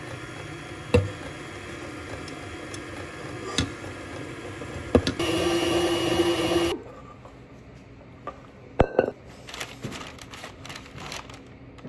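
KitchenAid stand mixer running with its wire whisk through pumpkin cookie batter, with a few sharp clicks. It runs louder for a stretch before stopping about seven seconds in. After that come clicks and short scraping strokes from a cookie scoop portioning the dough.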